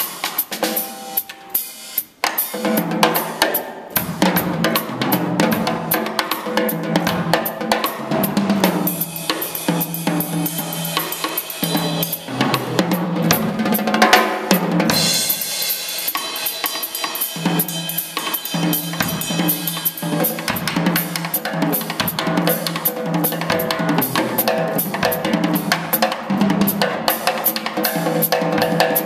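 Drum kit played live: a dense, unbroken run of snare, bass drum and tom strokes with cymbals, swelling into a loud cymbal-heavy passage about halfway through.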